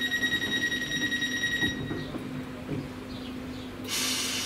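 Train door-closing warning: a steady high beeping tone from the doors of a Northern electric multiple unit, stopping a little under two seconds in as the doors shut, over the train's steady low hum. Near the end a loud hiss of air starts suddenly.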